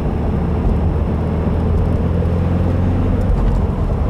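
2015 Subaru WRX's turbocharged 2.0-litre flat-four running steadily under way, with tyre and road noise, heard from inside the cabin.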